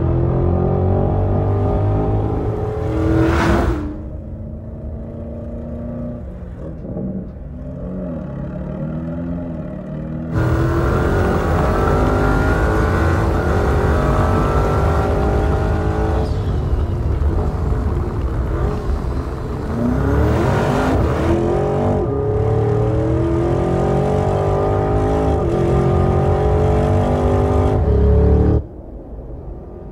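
Porsche Cayenne Turbo GT's 4.0-litre twin-turbo V8 accelerating hard, its pitch climbing in long rises that drop back at each upshift. It is quieter for a few seconds early on and loud again from about ten seconds in, with a short whoosh about three seconds in.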